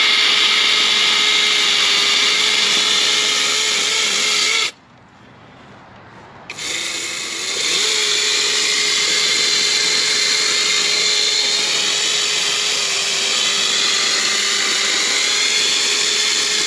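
Electric chainsaw running at full speed with a steady high whine. It is switched off suddenly about five seconds in, and after a pause of under two seconds it starts again and keeps running. The pitch sags slightly at times, as if under load in wood.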